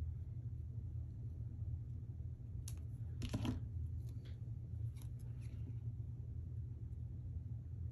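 Small craft scissors and a paper sticker being handled: a few short crisp snips, crinkles and clicks, the loudest cluster about three seconds in, over a steady low hum.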